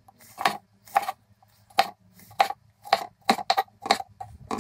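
Kitchen knife slicing a squid tube into rings, each cut ending in a sharp knock on the cutting board, about two cuts a second.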